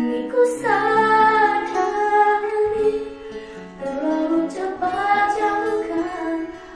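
A woman singing a song in Indonesian over instrumental accompaniment.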